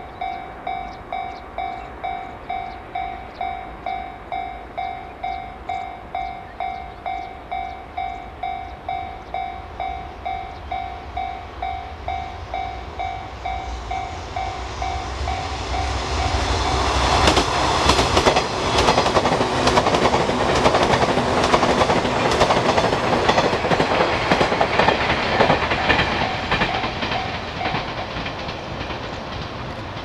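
A railway level-crossing alarm ringing in a steady pulse of about two strokes a second. About halfway through, a JNR 189 series electric multiple unit approaches and passes, loud with rapid clickety-clack of wheels over rail joints that drowns out the alarm, then fades near the end.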